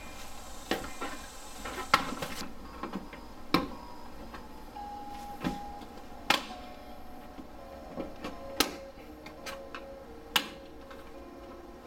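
Plastic interior trim and its retaining clips on the inside of an Acura RSX's rear hatch being pried loose, giving about eight sharp clicks and snaps at irregular intervals.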